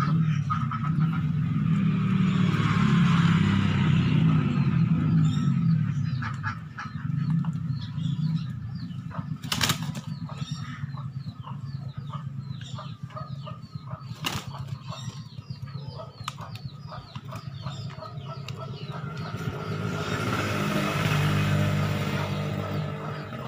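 A rooster's wings flapping and feet scuffling as it jumps and strikes at a hanging rubber sandal, with two sharp knocks in the middle stretch. A low rumble swells at the start and again near the end.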